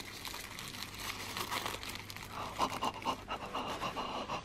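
Wrapping around a small ring box being undone by hand: irregular rustling and crinkling, busiest towards the end.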